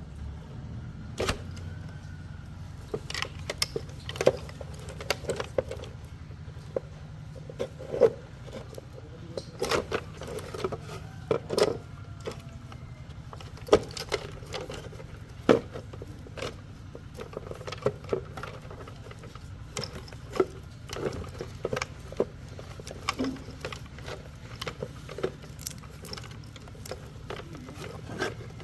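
Irregular clicks, taps and clatter of tools and small metal parts being handled, over a steady low hum.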